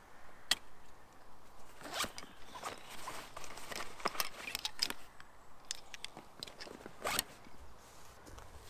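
The zip on a pocket of a fabric backpack being pulled open and shut, in a run of short rasps and clicks with a longer, louder pull about seven seconds in, alongside rustling of the pack's fabric.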